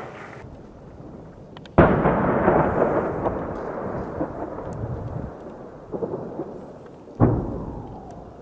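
Two heavy explosions about five seconds apart, the first the louder. Each is a sudden blast that dies away in a long rumble.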